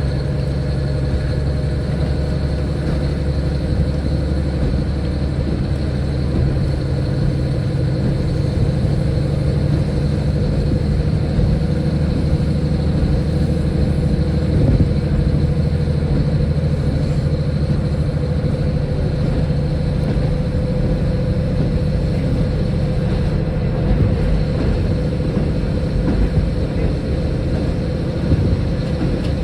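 A diesel railcar running, heard from on board: a steady engine drone with a few constant low tones and no pauses or changes in pace.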